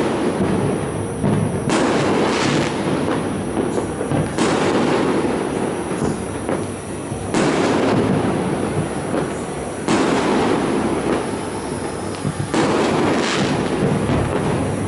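Fireworks display: a dense, continuous crackle with a loud burst every two to three seconds.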